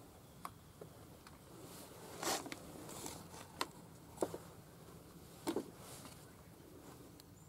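A few light clicks and short scrapes from small parts being handled during chainsaw repair work: about six in all, spread out, the longest about two seconds in and a double one about five and a half seconds in.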